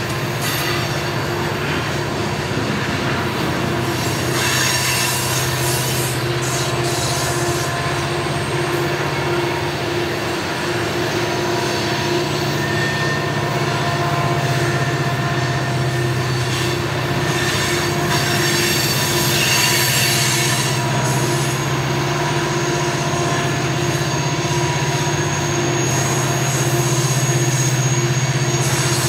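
Loaded coal hopper cars rolling steadily past on the upgrade. The steel wheels squeal against the rails in several steady high tones over a continuous low rumble.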